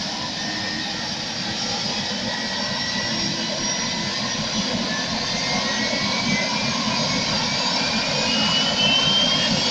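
Single-engine turbine helicopter starting up on the ground: a steady engine and rotor noise with a thin turbine whine that rises in pitch through the second half, slowly getting louder as the engine spools up.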